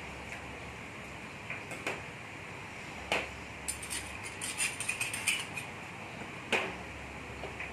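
Small sauce bowls and a metal ladle clinking against a stainless steel mixing bowl as sauces are tipped in, with scattered single clinks and a quick run of clinks about four to five seconds in, over a steady low hum.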